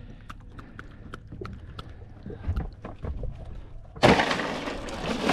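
Light clicks and knocks, then about four seconds in a sudden loud rattling rush: ice clattering in a fish cooler as a caught mangrove snapper is iced down.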